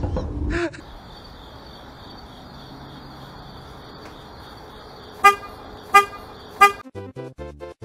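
Three short, loud horn toots about two-thirds of a second apart, over a steady high-pitched hiss. A bouncy, plucky music track starts right after the last toot.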